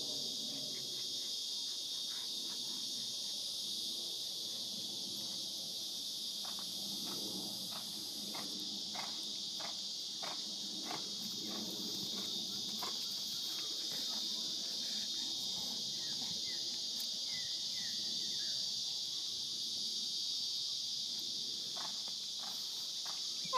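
Steady, high-pitched drone of insects, unbroken throughout, with faint scattered ticks around the middle.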